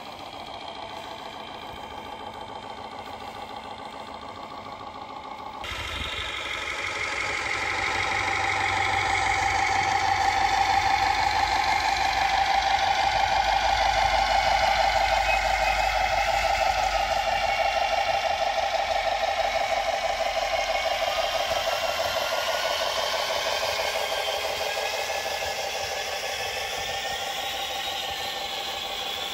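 Diesel engine sound from a large-scale RC truck, a Tamiya Knight Hauler rebuilt as a Mack Titan; the truck itself runs on an electric motor, so the engine note comes from its electronic sound unit. It runs steadily, jumps in level about six seconds in, grows louder as the truck comes near, then slowly fades.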